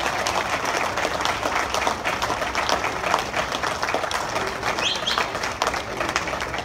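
A roomful of people applauding: many hands clapping in a steady, dense patter.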